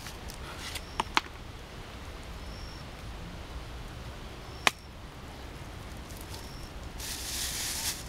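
A few sharp clicks and knocks while the catch is handled, the loudest about four and a half seconds in, then a plastic bag rustling for about a second near the end.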